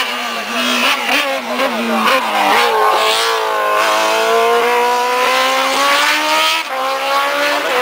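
Race car engine accelerating out of a bend: the revs hold low for a couple of seconds, then climb steadily, drop at a gear change about two-thirds of the way in, and climb again.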